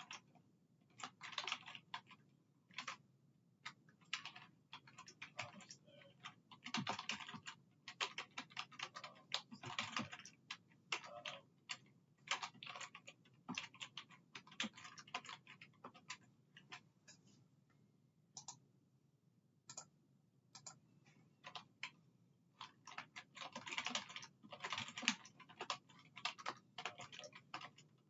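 Typing on a computer keyboard: runs of quick keystrokes in bursts, with a lull of only scattered keys for several seconds past the middle.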